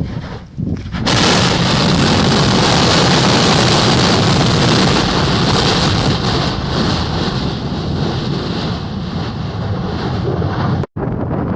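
Yasur volcano erupting: a loud, sustained roar that starts suddenly about a second in and slowly eases off.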